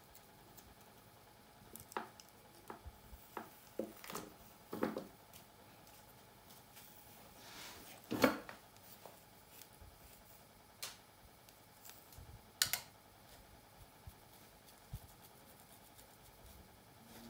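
Long fingernails scratching and picking at the scalp through thick hair, with scattered soft clicks and rustles. A wooden pick comb goes through the hair, with the loudest click about eight seconds in.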